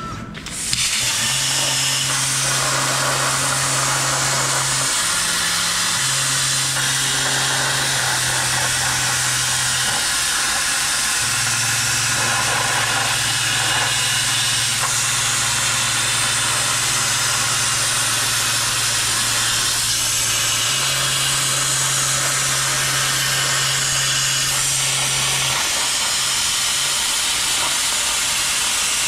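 CNC plasma torch cutting steel plate: the arc starts about a second in and then hisses loudly and steadily. Underneath, the table's gantry motors hum low, the pitch stepping up and down as the torch changes speed and direction along the cut.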